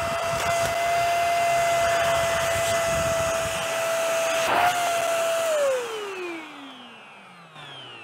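Enigma bagless vacuum cleaner's motor running at full suction with a steady high whine, its filter freshly cleaned. A brief rustle comes about four and a half seconds in. About a second later the motor is switched off and winds down, the whine falling steadily in pitch and fading.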